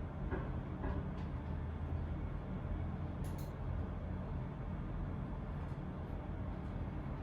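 Steady low rumble of background ambience, with a brief light click about three seconds in.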